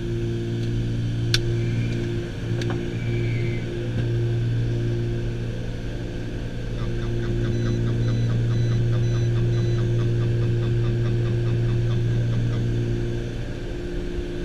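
Twin piston engines of a Piper Aerostar running steadily on approach, heard inside the cockpit as a constant low hum with a higher tone above it. A sharp click comes a little over a second in, and from about seven seconds in a rapid series of short beeps runs for about six seconds.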